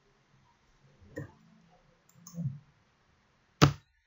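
Computer keyboard keystrokes: two faint taps, then one sharp, louder key click near the end that starts the program's build.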